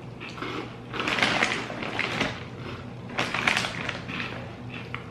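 Crunching as dry Cap'n Crunch's Strawberry Shortcake Crunch cereal is chewed, in two crisp bouts: one about a second in and another a little past three seconds.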